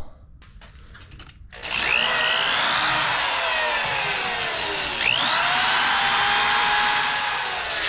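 Electric drill run against a hardened broken bolt, the bit spinning without biting into it. The motor whine sags, then rises sharply about halfway through, holds, and stops near the end.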